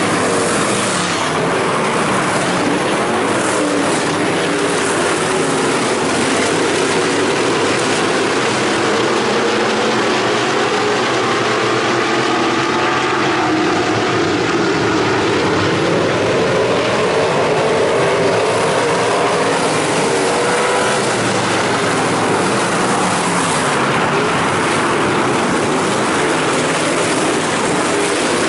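IMCA Stock Car V8 engines at racing speed on a dirt oval: a loud, continuous drone of several engines at once, their notes overlapping and rising and falling.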